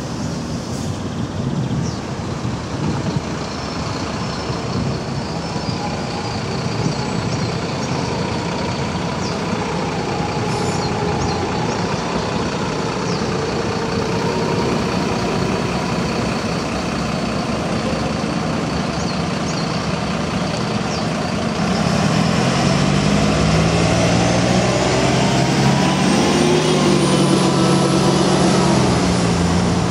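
Road traffic on a city street: trucks and cars running past in a steady rush. From about two-thirds of the way in, an engine note rises as a heavy vehicle pulls away.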